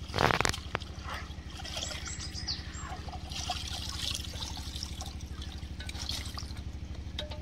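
Water trickling and splashing as small fish are scooped from shallow water in a plastic colander, drained and tipped into a metal pot, with one louder splash near the start, over a steady low hum.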